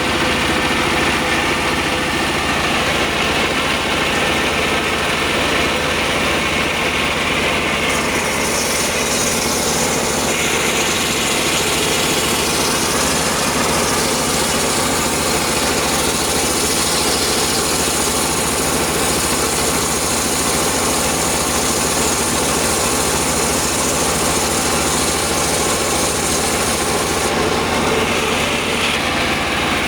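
Engine-driven circular sawmill running steadily while sawing sengon wood. A brighter, higher hissing noise joins about eight seconds in and drops away near the end.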